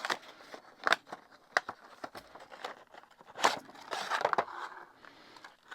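Handling sounds of the packaging as a small toy train engine is taken out: rustling and crinkling with a few sharp clicks, the loudest about three and a half seconds in.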